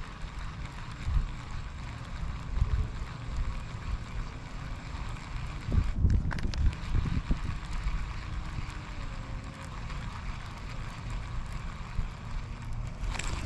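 Wind buffeting the microphone in uneven gusts, a low rumble over a faint steady hiss, with a stronger gust about six seconds in.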